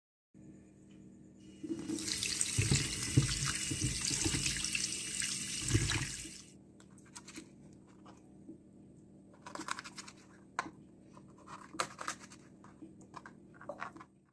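Tap water running into a sink for about four and a half seconds and then cut off, followed by scattered light knocks and clicks of a knife and hands working raw chicken wings on a cutting board.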